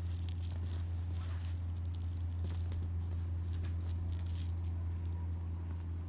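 A hand rubbing and smoothing a cloth, giving a scattered run of short scratchy rustles and light ticks, over a steady low hum.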